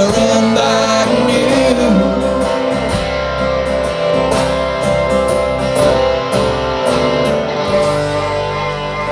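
Live band music: an acoustic guitar strummed with drums and cymbals, a held sung note over the first two seconds, then the band playing on without voice, easing slightly in loudness near the end.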